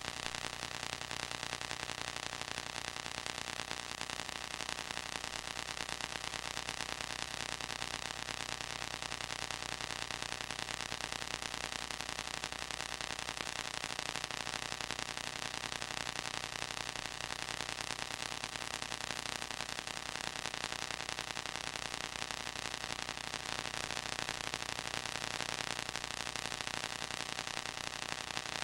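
Steady hiss with a faint electrical hum and nothing else, no sound events: the noise floor of a silent home-movie film transfer.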